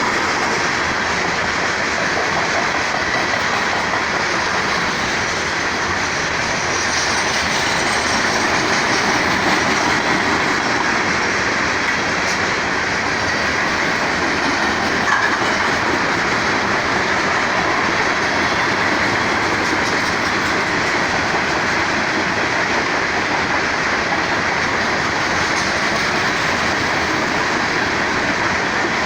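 Two BNSF freight trains rolling past at once, with a steady noise of steel wheels running over the rails that holds even throughout.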